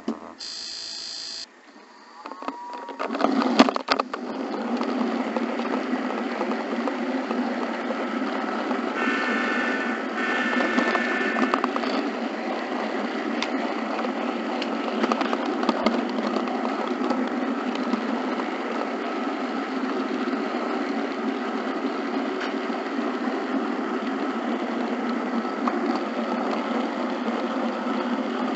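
Model locomotive sound decoder playing a running engine sound, with a chord horn sounding in two blasts about nine to twelve seconds in. A short high beep comes at the start and a few sharp clicks about three seconds in.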